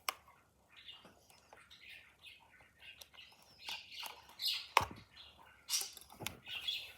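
Keyboard packaging being handled: irregular crinkles, squeaks and clicks, with one sharper click a little before five seconds in.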